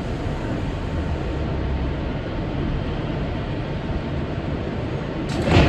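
New York City Subway R62A car running along the track: a steady rumble, with a louder rush of noise near the end.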